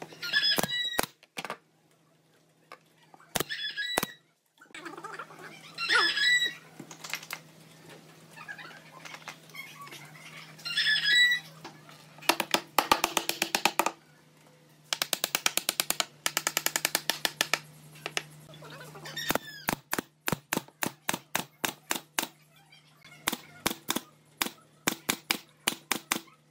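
Pneumatic nailer firing into pine boards: two fast strings of shots in the middle, then single shots about two a second near the end. A few short, loud animal calls come in the first half over a steady low hum.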